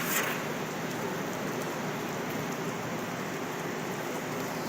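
Rain falling in a severe thunderstorm, a steady even hiss, with a short crackle right at the start.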